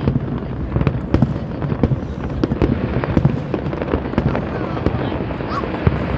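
Fireworks display going off: many sharp bangs and crackles a second, one after another, over a continuous rumble.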